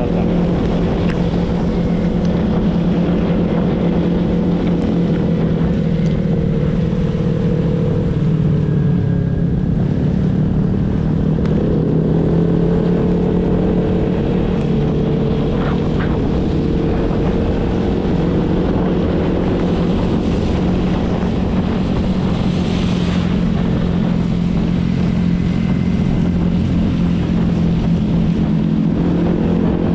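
Honda PCX150 scooter's single-cylinder engine running steadily at riding speed, heard from on board over heavy wind rush on the microphone. Its pitch sags about eight to ten seconds in and climbs again near the end as the throttle changes.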